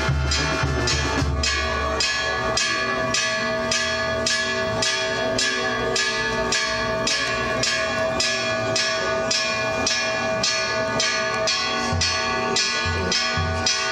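Church bell rung in quick, even strokes, about two a second, each stroke ringing on into the next. A drum is heard under it for the first couple of seconds, then drops out.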